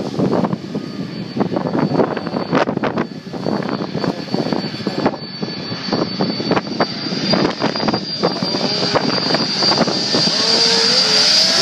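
Boeing 747's four jet engines on final approach, a steady high whine growing louder as the airliner closes in. Wind buffets the microphone throughout.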